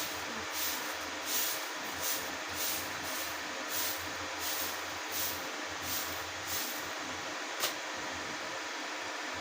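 Rhythmic swishing strokes, about three every two seconds, over a steady hiss. The strokes stop about two-thirds of the way in, and a single sharp click follows.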